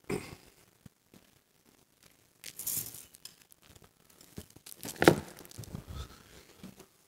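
Rustling and clicking handling noise picked up by a lectern microphone, with a loud thump about five seconds in as the next speaker reaches the lectern.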